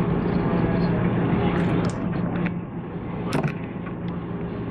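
Steady electrical hum from a JR 185 series electric train, with a few sharp clicks and knocks around the middle.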